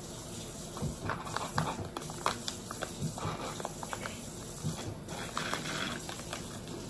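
Eating at the table: scattered small clicks and taps, most of them in the middle of the stretch, over a steady low background hiss.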